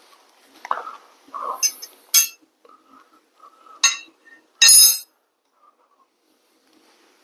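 Metal hand tools clinking and ringing as they are handled: three sharp clinks, about two, four and five seconds in, the last the loudest with a brief ring, with quieter handling sounds before them.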